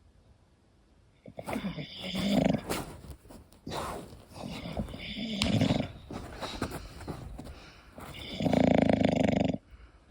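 English bulldog snoring in its sleep: a series of loud snores, each about a second long and coming roughly every three seconds, the last and loudest near the end.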